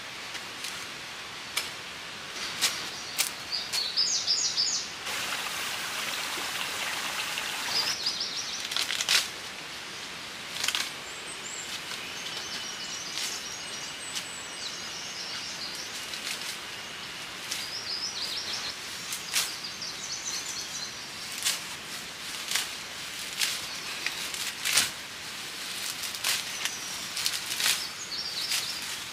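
Fern fronds rustling, with frequent sharp snaps and taps, as they are laid over the roof of a bamboo shelter; the rustling is heaviest from about five to eight seconds in. Small birds chirp now and then.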